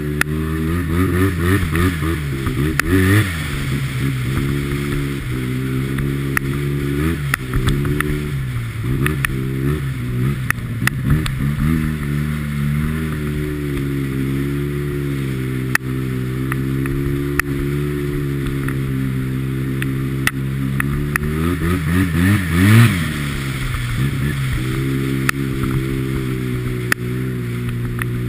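Arctic Cat Z1 Turbo snowmobile's turbocharged four-stroke twin running under way, its pitch rising and falling again and again with the throttle, held fairly even for a stretch in the middle, with a sharp rev peak about 23 seconds in. Scattered light knocks sound over it.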